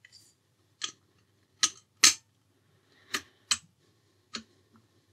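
Short, sharp metal clicks and taps, about six spaced irregularly, as an air rifle's valve body is handled and pushed into the action block by hand.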